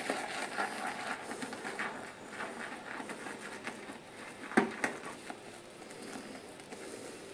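Shaving brush whipping shaving soap into lather in a bowl: a run of quick, wet swishing and squishing strokes that slowly fade. About four and a half seconds in there are two sharp knocks, the loudest sounds.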